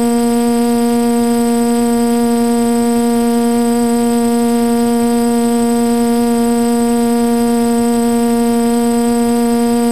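A hovering drone's motors and propellers making a steady, unchanging buzzing hum with a thin high whine above it, recorded from the drone's own camera.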